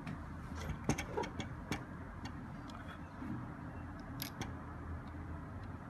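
A few light, sharp clicks and taps of small handling, scattered irregularly, over a steady low hum.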